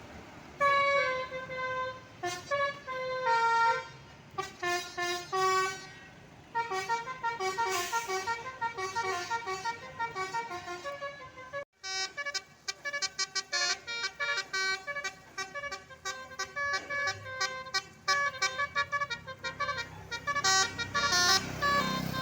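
Telolet basuri bus horn playing quick melodic tunes, short horn notes stepping up and down one after another. About halfway through the sound cuts out briefly and another horn tune starts, with faster runs of notes.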